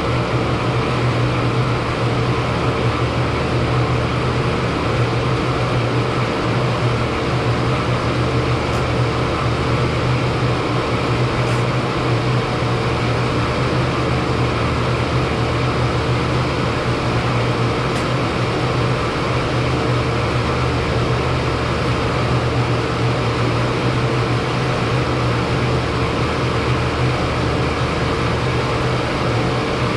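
40-ton Trane HVAC unit running with a steady hum: a strong low drone and a fainter steady tone above it, over an even rush of air.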